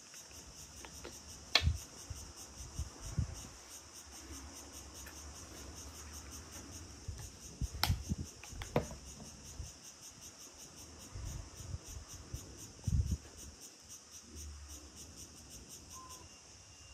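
Insects chirring steadily in a fast, even pulse, with a few sharp clicks and soft taps from handling a small plastic cosmetic tube and its cap on a desk.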